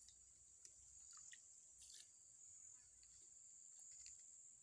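Near silence: a faint, steady, high-pitched drone of insects, with a few faint short chirps and ticks.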